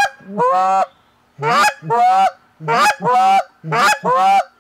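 Goose call blown in a calling cadence: about eight short honks in quick pairs, each pair high then breaking low, with the raspy, vibrating train note worked in between the honks.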